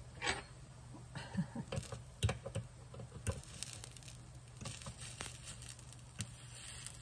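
A metal fork tapping and scraping against a waffle iron's plates, prying at a smashed-potato waffle that has stuck to them: an irregular scatter of light clicks and small scrapes.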